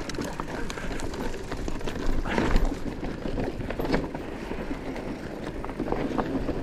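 Electric mountain bike descending a loose, steep dirt trail: tyres crunching and sliding over loose stones, with the bike clattering in a fast, irregular run of knocks and rattles.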